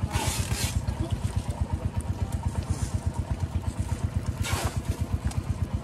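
A small engine idling steadily with an even, rapid low pulse, about eight beats a second. Two short bursts of hiss come just after the start and again about two-thirds of the way through.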